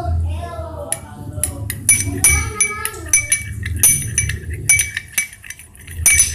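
A spoon clinking repeatedly against a bowl while stirring, in quick irregular strikes that each ring briefly at the same pitch, coming thicker from about two seconds in.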